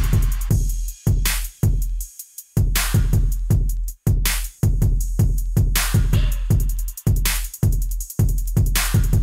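Background music: an electronic drum-machine beat with heavy bass and sharp snare-like hits, with a short break in the bass about two seconds in.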